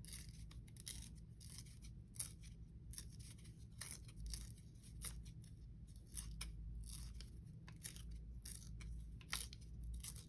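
Thin paper being torn slowly by hand: a faint run of small, irregular crackles.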